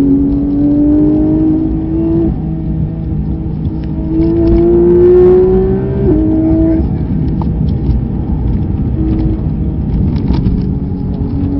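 Race car engine heard from inside the cabin under hard acceleration. Its note climbs in pitch and drops with an upshift about two seconds in and again about six seconds in, then runs steadier. Heavy tyre and wind noise sit underneath.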